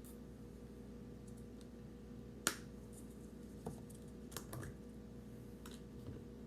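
A few scattered sharp clicks and light taps, one louder than the rest about two and a half seconds in, over a steady low hum.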